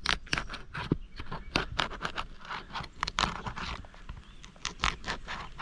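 An asphalt roof shingle being pried loose from the one below, its sealant strip tearing apart in a quick run of short, irregular scrapes and crackles.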